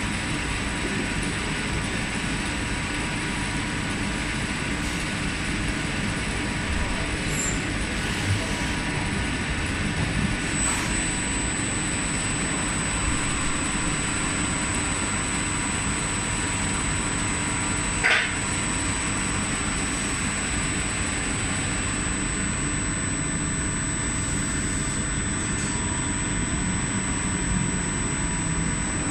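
DMG CTX 310 CNC lathe turning a brass bushing: a steady machine running noise with a thin constant high tone, broken by a few short sharp sounds, the loudest about 18 seconds in.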